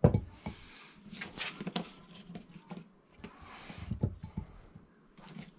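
Raw potato chunks being pushed and knocked by hand into a ceramic slow-cooker crock. There are dull thumps right at the start and again around four seconds in, with lighter clicks in between.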